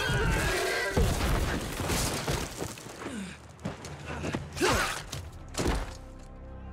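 Fight sound effects as a charging horse and its rider crash down into the dirt: heavy thuds and sharp hits, with a rising and falling cry about two thirds in. Soft music comes in near the end.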